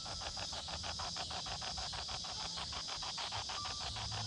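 Spirit box ghost-hunting app sweeping through static, a steady chopped hiss of short pulses about eight a second.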